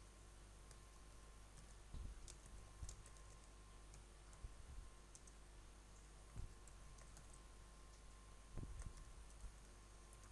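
Faint, scattered computer keyboard keystrokes and clicks, a few irregular taps every second or two, over a low steady hum.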